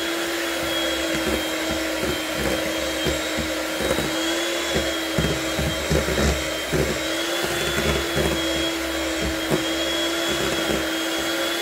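Electric hand mixer running steadily with a high whine as its beaters churn thick cream cheese batter, knocking irregularly against the stainless steel bowl.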